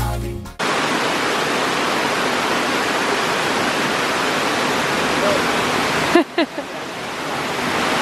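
Background music fades out in the first half second, then the steady rush of a nearby waterfall. About six seconds in the rush dips briefly and a short voice-like sound is heard.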